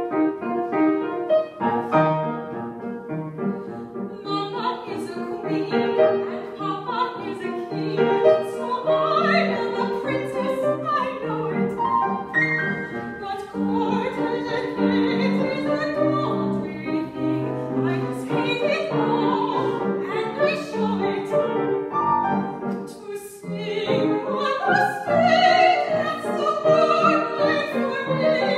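Soprano singing with grand piano accompaniment. The piano plays alone for the first few seconds, then the voice comes in.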